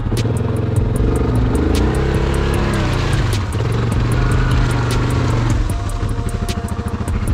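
ATV engine running with uneven revs: a steady low rumble whose pitch rises and falls a few times, then holds steadier near the end.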